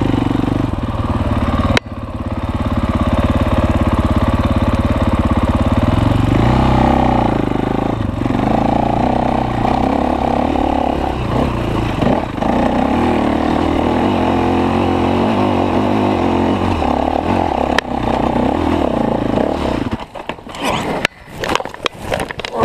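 Enduro dirt bike engine running under load on a trail ride, its revs rising and falling as the throttle changes. About twenty seconds in the engine drops away and a series of irregular knocks and thumps follows as the bike goes down in a spill.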